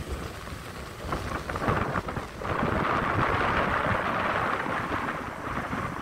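Ocean surf breaking and washing up the beach, with wind buffeting the microphone as an uneven low rumble. The wash of the surf swells louder about two and a half seconds in.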